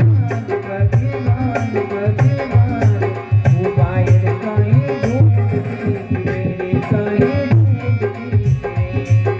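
Instrumental interlude of a Rajasthani devotional bhajan: tabla playing a steady rhythm with deep, booming bass strokes under a wavering melody line.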